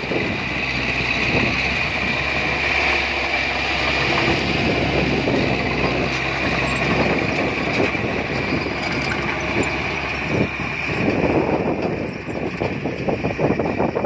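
Small crawler bulldozer's diesel engine running steadily under load with a high whine as it pushes dirt, then clanking and rattling of the tracks in the last few seconds as it backs away.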